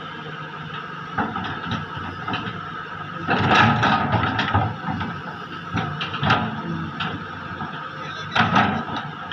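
Heavy excavator running steadily while working, with sharp metallic clanks and squeals from the bucket and boom, loudest in a burst about three seconds in and again near the end.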